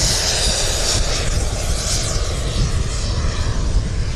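L-39 jet trainer's turbofan climbing away: a steady rushing jet noise whose high whine fades and drops as the plane recedes.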